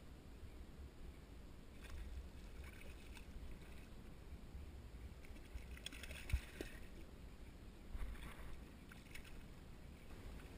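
Hooked fish splashing and thrashing at the water's surface beside a kayak as it is reeled in, in several short bursts, the biggest about six seconds in with a sharp thump.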